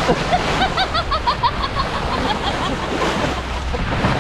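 Steady wash of wind and waves on the microphone, with a quick run of about a dozen short, high chirps over the first three seconds.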